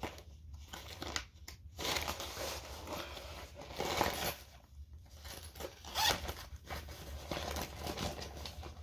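Papers and school supplies rustling and crinkling as they are handled and shuffled inside a zippered school binder, with louder crinkles about four and six seconds in.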